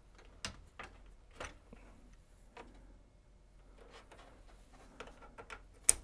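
A scatter of small plastic clicks and taps as an RJ45 network plug is handled among patch cables and moved between patch panel ports, with one sharper click near the end.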